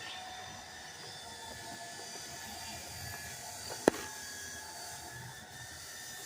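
Steady low background hum with a single sharp click about four seconds in.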